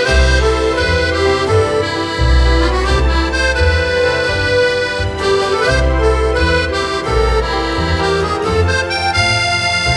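Background music: a melody of held notes over a bass line that changes every second or so.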